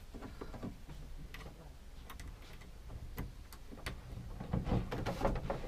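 Crimped spade connectors being pushed onto a caravan tap's micro switch terminals: scattered light clicks and ticks, with a few soft knocks near the end.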